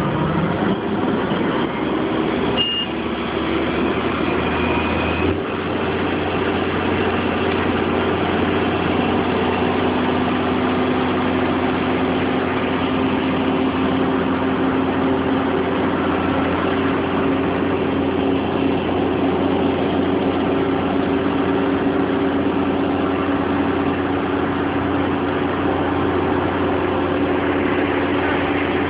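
Crane engine running steadily as it hoists a slung load. Its pitch shifts slightly about five seconds in and rises a little again near ten seconds.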